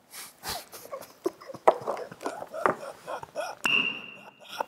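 Crunchy snack chip bitten and chewed close to a lapel mic, with stifled giggling. About three and a half seconds in comes a sharp smack of a plastic squeaky toy hammer, then its high whistling squeak held for about a second.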